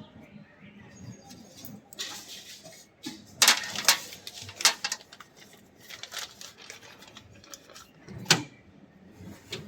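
Handling noise: a series of sharp clicks and knocks, clustered about three and a half to five seconds in and once more near the end, over faint rustling.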